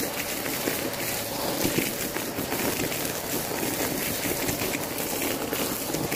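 Vacuum cleaner running with its hose nozzle over a pile of confetti, sequins and paper scraps on carpet, a steady suction noise with a faint motor tone. Small pieces rattle and click as they are sucked up.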